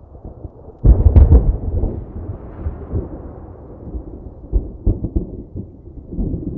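Thunder: a sharp, loud thunderclap about a second in, followed by deep rolling rumble with smaller cracks, swelling again near the end.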